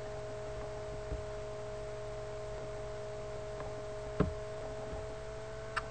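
Faint steady hum with two steady tones over it, broken by a soft click about a second in and a sharper click just after four seconds.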